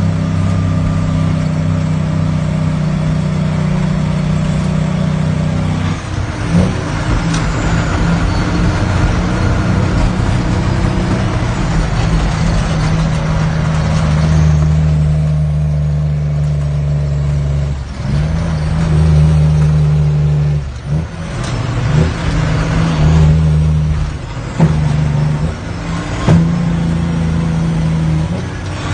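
Heavy diesel truck engine heard from inside the cab, running under load. Several times the engine note drops out briefly and comes back at a new pitch as the manual transmission is shifted through the gears.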